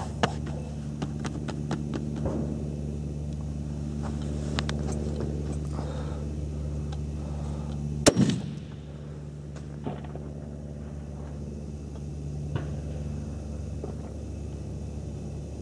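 A single rifle shot about eight seconds in, from a Swiss K-31 straight-pull rifle firing GP11 ammunition, with a short echo after the crack. A few light clicks come before it, and a steady low hum runs underneath.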